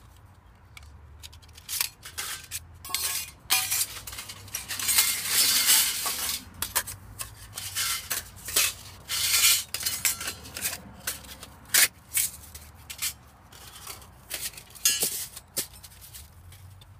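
Thin titanium panels of an MSP Core 4 collapsible wood gas stove clinking, clicking and scraping against one another as the stove is taken apart and the plates are stacked: a run of irregular light metallic clatter.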